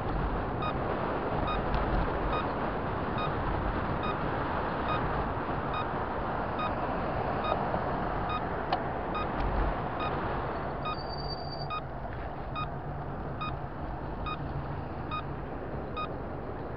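Steady road and wind noise of a vehicle travelling along a city road, with a short electronic beep repeating about every two-thirds of a second through most of it.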